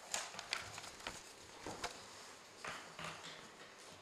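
Faint, irregular clicks and taps with a little rustling, from councillors pressing buttons on handheld electronic voting devices while a vote is cast.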